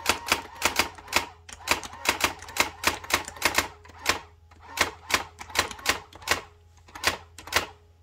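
Brother GX-6750 electronic daisy-wheel typewriter printing character by character as keys are pressed: a run of sharp clacks, about three to four a second, with short pauses between groups, over a faint motor hum.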